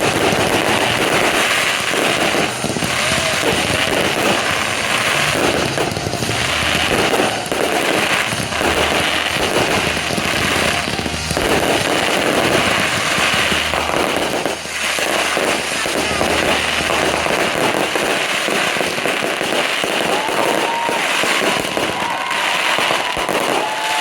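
Fireworks in a dense, continuous barrage of bursts and crackling, with no break. This is a show's finale.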